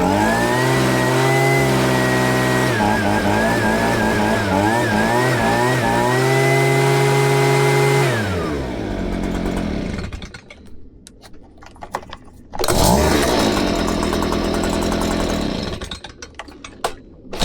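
Stihl BG 65C handheld leaf blower's two-stroke engine running at high revs with the throttle worked. About eight seconds in it winds down to a low idle. It is revved up again sharply about halfway through, drops back near the end and then revs up again. It is running smoothly on a freshly replaced primer bulb.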